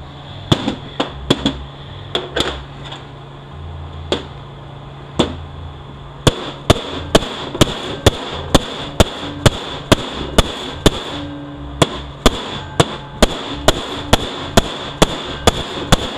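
Hammer blows on a metal bushing tool in a 6L80E transmission: a few scattered strikes, then a steady run of sharp blows about two a second from about six seconds in, with a brief pause in the middle.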